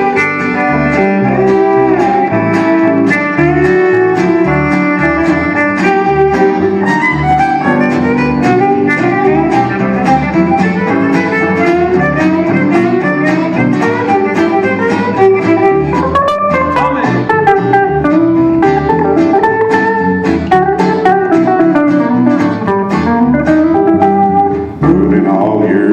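Live western swing string band playing an instrumental break: guitar lead over steady rhythm guitar and bass.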